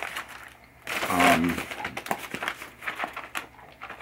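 Brown paper mailer crinkling and rustling as it is handled and squeezed, in a quick run of crackles, with a short hum from a man's voice about a second in.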